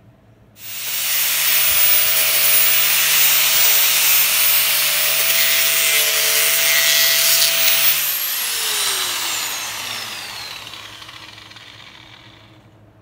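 Small angle grinder started about half a second in, running under load against steel with a harsh grinding noise and a steady motor whine. About eight seconds in it is switched off, and its whine falls in pitch as the disc spins down and fades.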